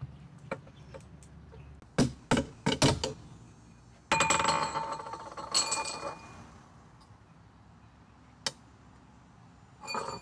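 Sharp clicks and knocks of metal being handled on a hard tabletop, followed by about two seconds of ringing metallic clinking and jangling, then a single click and a last short clatter near the end.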